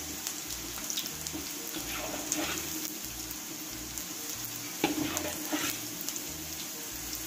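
Julienned ginger sizzling in hot oil in a wok, a steady hiss. A metal ladle scrapes and clinks against the pan a few times as some of the oil is scooped out.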